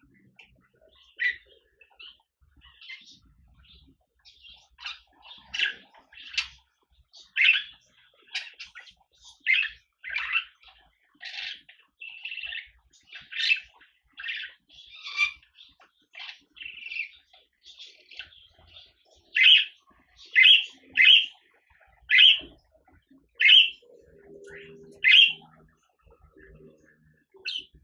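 Budgerigar chirping: a long series of short, sharp chirps, roughly one a second, growing louder and more regular in the last third.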